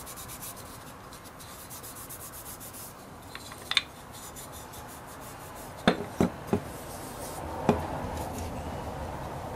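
A cloth rubbing mineral oil into a small wooden walnut toy, in quick repeated scratchy strokes. A few sharp knocks come as the toy is handled on the bench, mostly in the second half.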